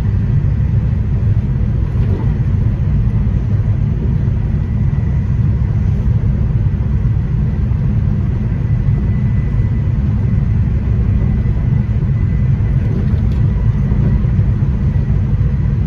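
Amtrak Acela Express passenger car at speed, heard from inside the cabin: a steady low rumble of wheels on rail, with a faint steady high tone above it.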